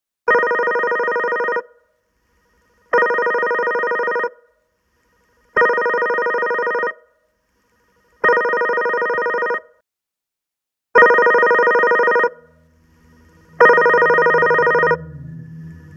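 iPhone incoming-call ringtone: a fluttering electronic ring in bursts about 1.3 s long, repeating roughly every 2.7 s, six rings in all. A faint low drone comes in under the last rings.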